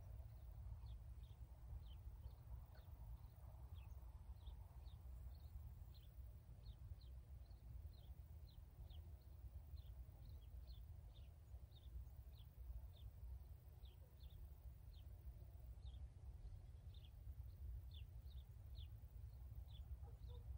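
Faint, short, high chirps from a small animal, repeating irregularly at about two a second, over a low steady rumble.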